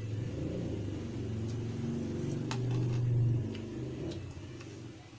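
A low rumble that swells to its loudest about three seconds in and then fades, with a few light clicks from a fork working in a paper cup of instant noodles.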